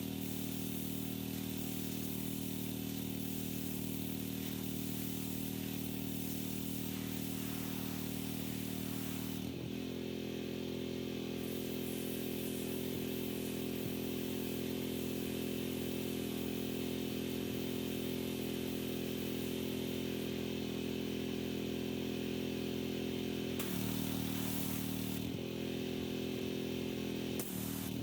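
Small gas engine of a pressure washer running steadily, with the hiss of the spray above it. The engine note shifts about a third of the way in and again near the end, as the load on the pump changes.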